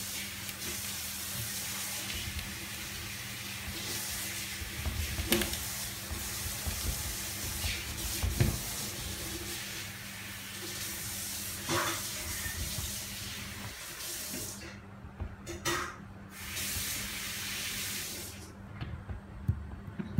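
Steady hiss of running water that stops about fifteen seconds in, comes back for about two seconds, then stops, with a few sharp knocks along the way.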